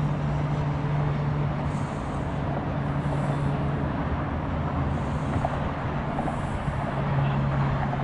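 Steady rumble of motor traffic with a low engine hum. The hum fades about four seconds in and returns near the end.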